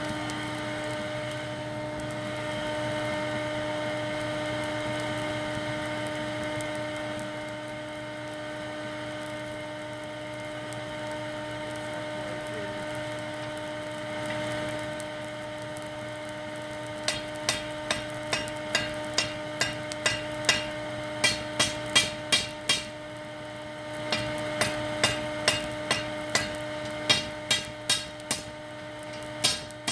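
Hand hammer striking red-hot steel bar stock on an anvil in quick runs of blows, about two or three a second, each blow ringing briefly. The blows begin about halfway through and pause once for about a second. A steady hum runs underneath throughout, and for the first half it is the only sound.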